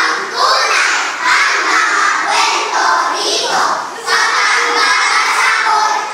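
A group of young children chanting loudly in unison in choral recitation, in phrases with short breaks about a second in and around four seconds in.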